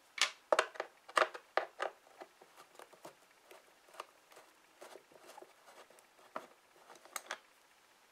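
Sharp clicks and taps of a screwdriver and small screws being handled on a plastic armrest shell, several loud ones in the first two seconds, then lighter scattered ticking as a screw is turned out.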